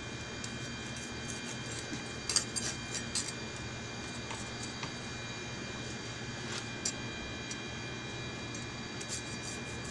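Kitchen knife scraping scales off a fish on a plastic cutting board: a few short scratchy clicks, a cluster between two and three seconds in and a few more near seven and nine seconds, over a steady background hum.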